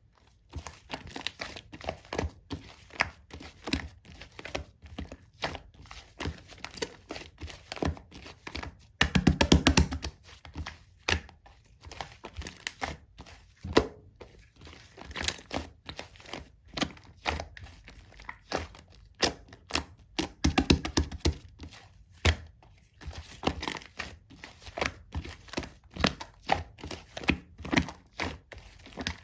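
Clear, thick slime being squeezed and pressed by hand, giving a steady stream of sticky clicks and crackles. Two denser, louder runs of rapid clicking come about a third of the way in and again past the middle.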